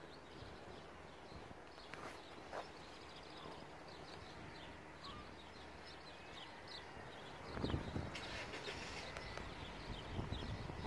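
Small birds chirping repeatedly over faint outdoor background noise, with a brief low rumble about three-quarters of the way in.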